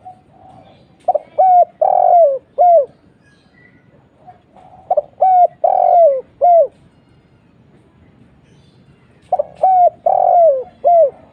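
Spotted dove cooing: three phrases about four seconds apart, each a run of four or five short coos, with the longest coo near the end falling in pitch.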